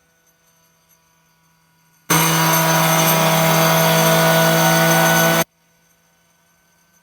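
Homemade CNC router's spindle running and cutting angle aluminum: a loud, steady whine with cutting noise. It starts abruptly about two seconds in and cuts off just as abruptly about three seconds later.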